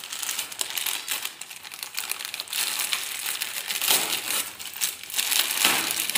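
Thin plastic courier mailer bag being pulled open and crumpled by hand: a dense crinkling and crackling of plastic, with louder rustles about four seconds in and again near the end.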